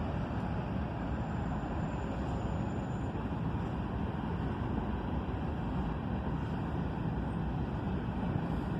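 Norfolk Southern freight train rolling past on the move, a steady rumble and rush of wheels on rails.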